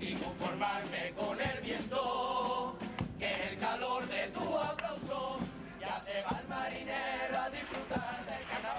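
Junior Cádiz carnival chirigota singing in chorus, several young voices together in a sung carnival number.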